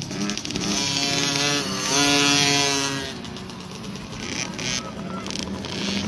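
Small pit bike engines racing past, revving up with the pitch climbing twice. The loudest rev comes about two seconds in and fades after about three.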